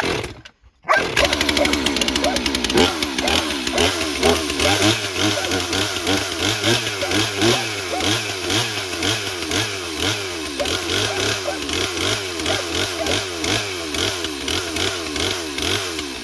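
Stihl MS 362 C 59 cc two-stroke chainsaw on its first, cold start of the day: the engine catches about a second in and keeps running, its pitch wavering up and down at a steady pace.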